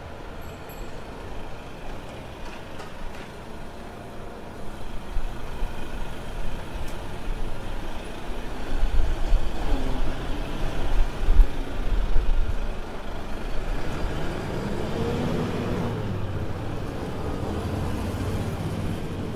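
A heavy motor vehicle such as a bus running near the street: a low engine rumble that builds to its loudest around the middle, then an engine note that rises and falls in pitch in the later part, over steady street noise.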